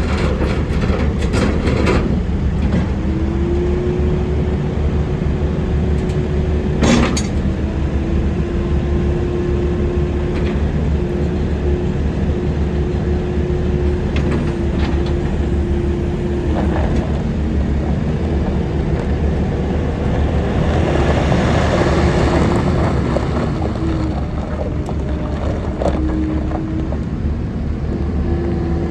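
John Deere 316G skid steer loader's diesel engine running steadily, with a whine that drops out and comes back several times. There is a sharp click about seven seconds in, and the noise grows louder and hissier a little past twenty seconds.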